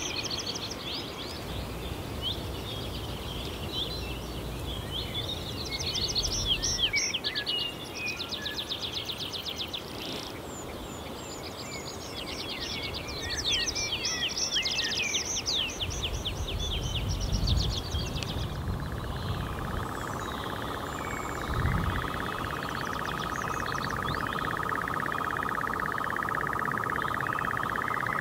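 Songbirds singing in quick high trills and chirps, with a low rumble coming and going. About two-thirds of the way in, a European nightjar starts its churring song, a steady unbroken reel.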